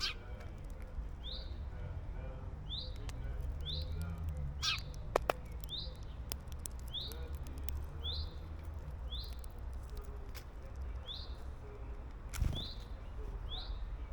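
A wild garden bird giving a short rising call over and over, about once a second, with scattered light clicks and a steady low rumble behind it.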